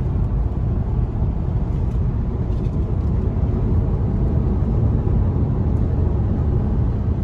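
Steady road and wind noise heard inside the cabin of a Volvo S90 at freeway speed on a macadam road surface: an even, low tyre roar with no distinct events.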